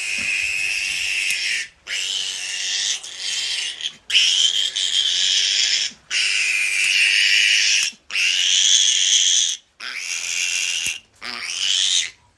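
Piglet squealing while held and handled: seven long, high-pitched screams, each one to two seconds, with short breaks for breath between them.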